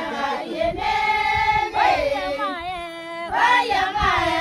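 Group of women singing a traditional song together. Their voices hold notes and glide up and down between them.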